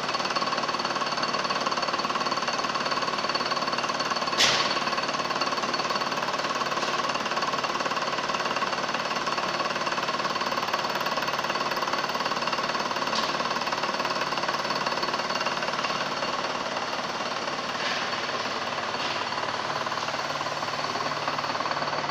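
Milling machine cutting helical flutes into a high-speed-steel reamer blank: a steady, dense machining noise with a constant whine, and one sharp click about four and a half seconds in.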